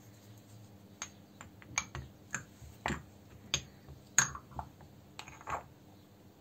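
An irregular series of about ten sharp clicks and light knocks of hard objects, starting about a second in and stopping after about five seconds; the loudest comes a little after the fourth second.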